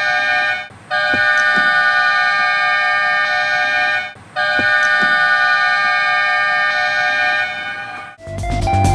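Thor Guard lightning-warning horn sounding steady, multi-tone blasts, broken twice by brief gaps. Music comes in near the end.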